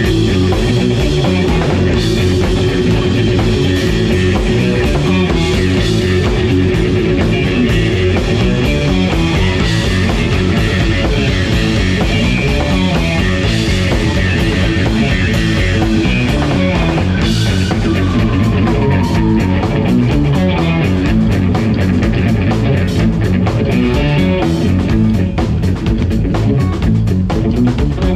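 Live band playing: electric guitars over electric bass and a drum kit, with a long held note through the first third and a falling note bend later on.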